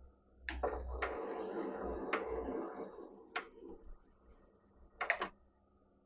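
Colchester Student lathe starting up and running under power for about four seconds with its change-gear train set up for screw cutting, with a high whine and a few sharp clicks, then stopping. A short loud clatter follows about five seconds in.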